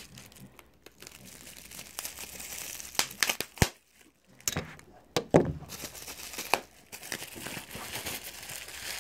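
Packaging crinkling and tearing as it is handled and opened by hand, with scattered sharp clicks and a louder crackle just past five seconds in.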